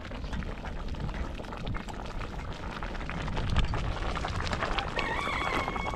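A pot of grains and pulses bubbling at the boil: a steady seething noise full of small pops. Near the end a high held tone with overtones comes in.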